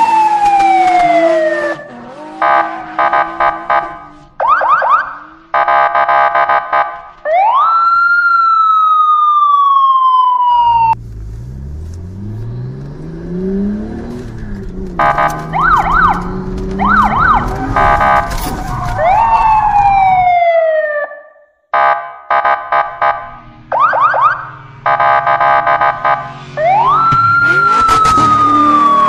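Electronic siren sound effects from a battery-powered toy police car: wails that rise quickly and fall away slowly, alternating with bursts of fast pulsing beeps. From about ten to twenty seconds in, a lower whirring sound that rises and falls in pitch like an engine revving takes over before the siren resumes.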